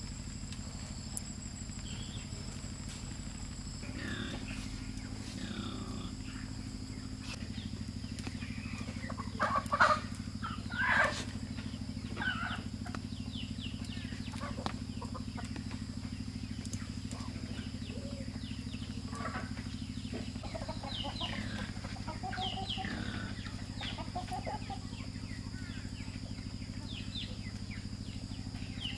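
Chickens clucking, with two louder calls close together about ten seconds in and many short high chirps later on, over a steady low hum.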